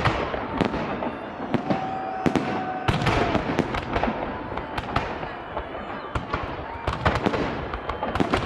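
Festive fireworks salute: shells bursting in a rapid, irregular series of sharp bangs over continuous crackling.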